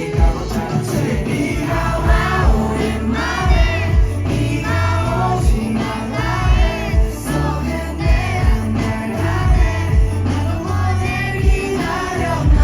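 Live concert music played loud through a PA: a singer's melodic vocal over a beat with a steady kick drum and heavy bass.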